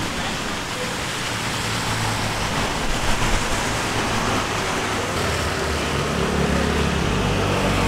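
City traffic on a rain-wet street: cars passing with a steady hiss of tyres on wet road.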